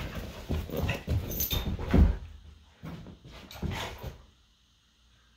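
Dogs playing rough: a string of short dog noises and scuffles, the loudest a heavy thump about two seconds in, stopping about four seconds in.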